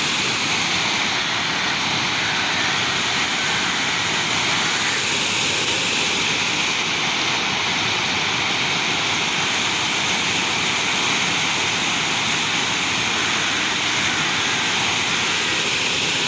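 Waterfall: falling water making a steady, unbroken rushing roar.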